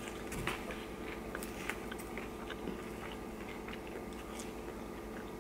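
A person chewing food close to the microphone: faint, irregular wet clicks and crunches over a steady low hum.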